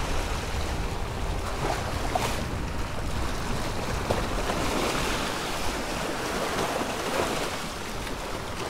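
Small waves washing and splashing against granite jetty rocks, with wind rumbling on the microphone.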